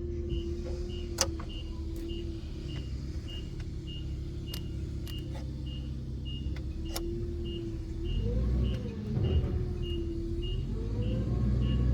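Car engine running at idle, revved up and back down twice near the end, with a short high beep repeating about twice a second and a few sharp clicks.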